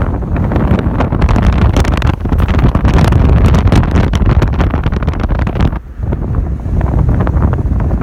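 Heavy wind buffeting the microphone while a 4x4 drives along the beach, a loud, steady rumble that drops out briefly about six seconds in.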